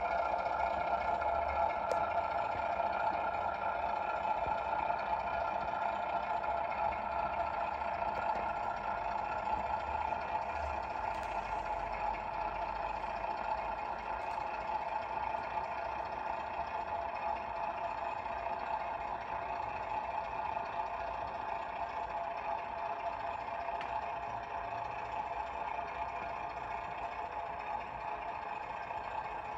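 The sound decoder in a Class 08 shunter model plays diesel engine sound through the model's small onboard speaker: a steady, tinny engine drone with little bass that slowly grows quieter.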